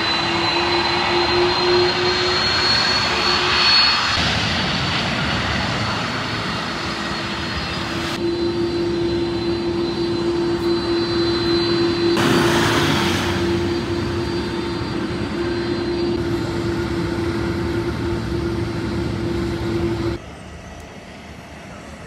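Airbus A330-300's jet engines running, a steady rushing noise with a constant hum. The sound drops off sharply near the end.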